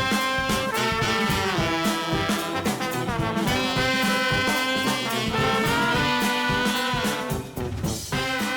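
Intro music with brass horns playing a swing-jazz style tune over a steady drum beat.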